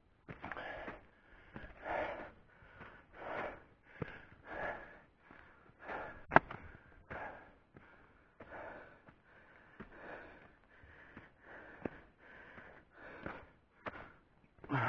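A man breathing hard and rhythmically, winded from climbing a steep hill, with a heavy breath about every second and a half. A single sharp click about six seconds in.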